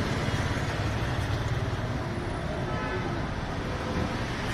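Steady street background noise with a low traffic rumble and no distinct events.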